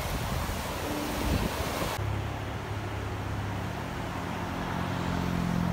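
A steady rushing noise, then about two seconds in it changes abruptly to a motor vehicle's engine running with a steady low hum.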